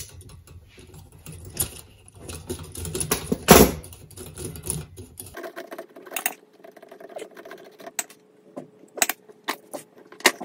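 Metal clicks and clinks of an air-spaced variable capacitor being taken apart with pliers to remove sets of its fins, loose metal plates jangling, with a louder clatter about three and a half seconds in.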